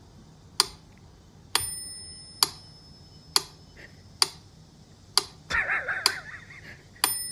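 Steady ticking, just under one sharp tick a second, several ticks with a short bell-like ring after them. About three-quarters of the way through comes a brief warbling, wavering sound.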